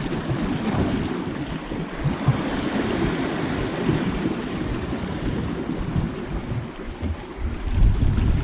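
Wind buffeting the microphone with a low, gusty rumble over waves washing on a rocky shore, with a steady sea hiss.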